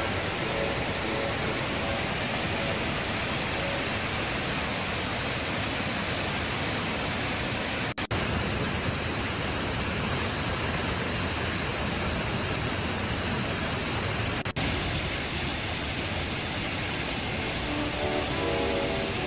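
Rushing whitewater of a swollen, muddy river and waterfall in flood: a steady, dense wash of water noise, broken twice by brief cuts, about eight and fourteen and a half seconds in.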